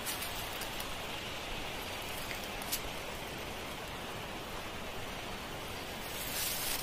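A steady rushing hiss of outdoor ambience, with a few faint clicks and a brief louder rustle near the end.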